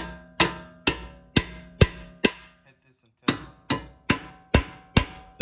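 Hammer blows ringing on the steel front suspension of a 1997–2001 Honda CR-V, striking to break a seized joint loose. The blows come about two a second, six of them, then a pause of about a second, then six more.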